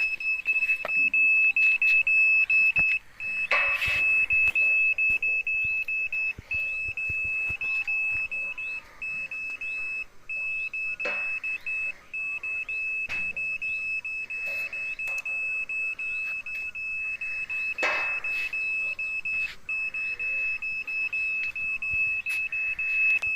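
A handheld satellite finder meter sounds a continuous high-pitched tone, which signals that it is picking up satellite signal, with a few brief breaks. Three short knocks from handling the equipment stand out over the tone.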